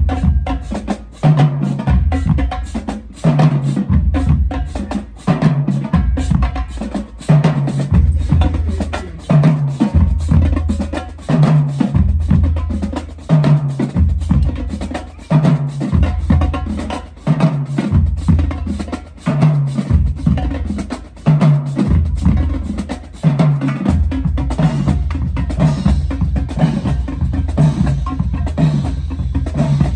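Music with a heavy drum beat: deep bass notes repeating in a pattern about every two seconds, with dense drum and percussion hits over them.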